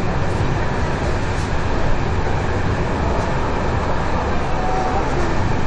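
Steady running noise of a passenger train moving at speed, heard from inside the carriage: a continuous low rumble with no distinct clacks.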